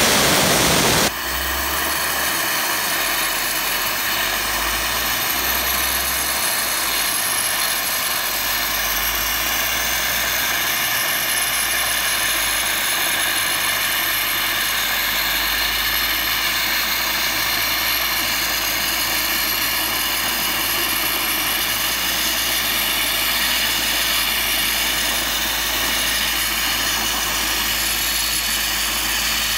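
Dry ice blaster's nozzle jetting compressed air and dry ice pellets against a tyre to clean it: a loud, steady rushing hiss with steady whistling tones in it, louder for about the first second.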